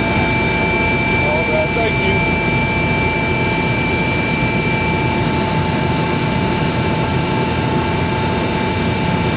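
Medical helicopter in flight: a loud, steady engine and rotor noise with a constant high whine.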